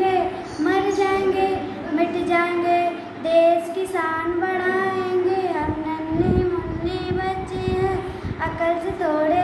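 A young girl singing a Hindi poem solo in a sing-song chant, her voice holding long notes at the end of each line.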